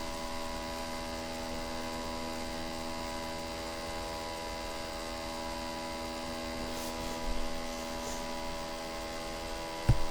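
A steady hum made of several held tones, level and unchanging throughout, with a brief faint rustle about seven seconds in.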